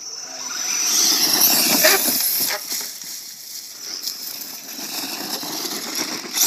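Electric RC monster truck with a Tekin Pro-4 4000kv brushless motor driving over a rocky dirt hill: a high motor whine that fades after the first second or so, tyres scrabbling on loose gravel, and a few sharp knocks as it bounces over the rocks.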